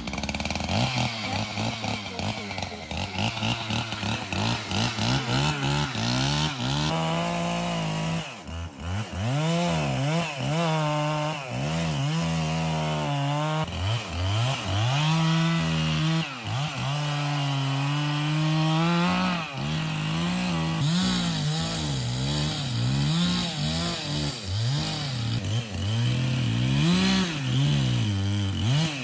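Chainsaw engine running at full throttle while felling a tree, its pitch sagging and climbing again over and over as the chain bogs in the cut and frees up.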